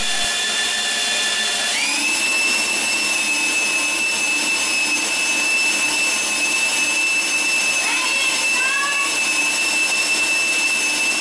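Electric drill driving a home-built rotating test arm through a pool of water: a steady motor whine that steps up in pitch about two seconds in as it speeds up, then holds level, with the water churning. A few short rising chirps sound briefly about eight seconds in.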